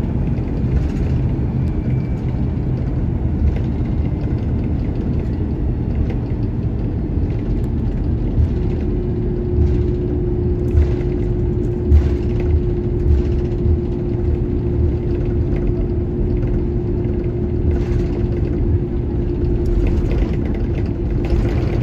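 Inside the cabin of an Airbus A330-300 taxiing: a steady low rumble from its turbofan engines at taxi power and the rolling airframe, with scattered short knocks and rattles. A steady hum joins about eight seconds in and holds.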